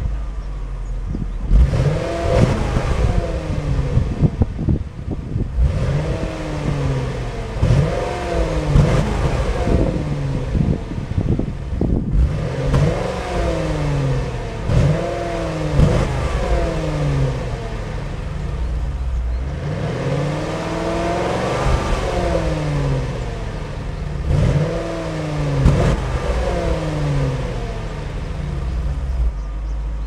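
Exhaust note of a 2002 Ford Thunderbird's Jaguar-derived 3.9-litre DOHC V8 through its dual exhaust, heard at the tailpipes. The engine is idling and is blipped about a dozen times, each rev rising and falling back to idle.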